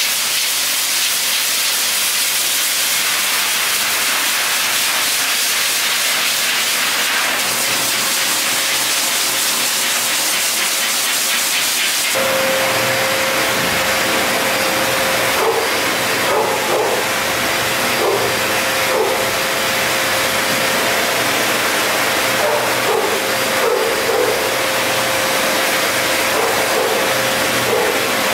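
Hose-fed pet blow dryer blasting air onto a wet dog's coat: a loud, steady rushing hiss. From about twelve seconds in, a steady hum sits under the hiss.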